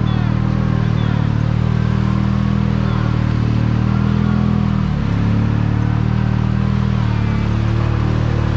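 Kawasaki Mule Pro-MX side-by-side engine running steadily under load as the machine pushes through deep muddy water in four-wheel low with the throttle held open. The engine note dips briefly about five seconds in and then picks back up, with water and mud sloshing against the front of the machine.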